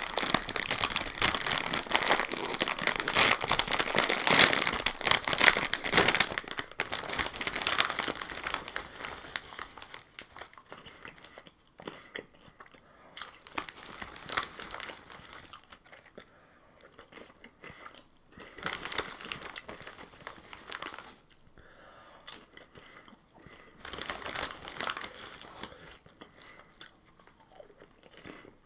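A Cheetos Flaming Hot Popcorn snack bag crinkling loudly as it is pulled open, for the first several seconds. Then quieter, scattered rustling as a hand digs into the bag, with crunching as the puffed popcorn is eaten.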